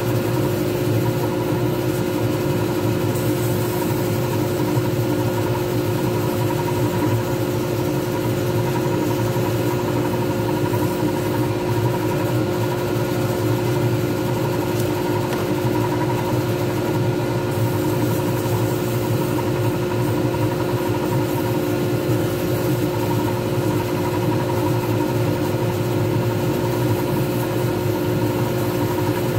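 Pen-turning lathe running at a constant speed with a steady motor hum, a resin pen blank spinning between centres while it is finished by hand.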